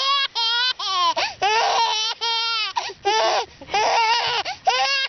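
Baby laughing hysterically in a rapid run of short, high-pitched squealing laughs, two or three a second, with quick breaths between.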